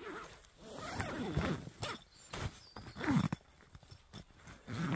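Nylon fabric of a down sleeping bag and a bivvy bag rustling as they are handled, pulled and smoothed by hand, in several irregular bursts.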